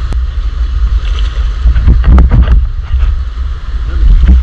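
Wind buffeting the microphone as a heavy low rumble, over the steady rush of stream water, with a few brief sharper sounds about two seconds in.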